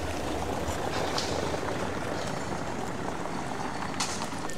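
Steady outdoor street noise with a low rumble that fades about a second in, and a single sharp click about four seconds in.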